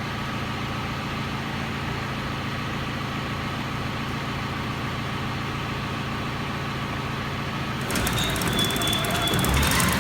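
Allis-Chalmers Roto-Baler running a bale cycle, driven by a tractor engine that runs steadily. About eight seconds in, the sound gets louder with dense rattling and a thin high squeal as more of the baler's mechanism starts working.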